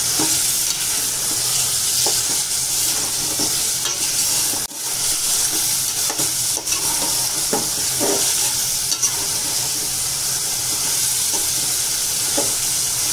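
Broiler chicken frying in spiced oil and masala in an aluminium pot, sizzling steadily while a spatula stirs it, scraping the pot now and then.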